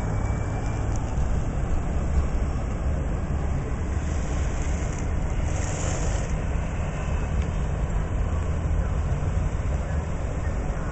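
Passenger train running: a steady, dense rumble of wheels on rails, with a short hiss about halfway through.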